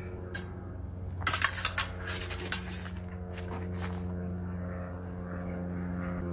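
Steel sabers clashing: a quick flurry of sharp metallic clinks about a second in, then one more clink a moment later.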